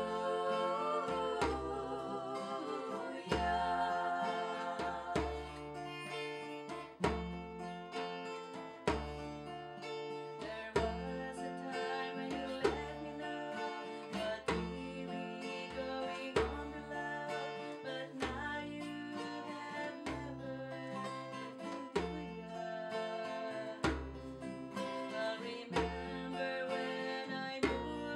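Two acoustic guitars strumming chords with a djembe hand drum keeping a steady beat of deep bass strokes. A woman's voice sings at times, most clearly near the start.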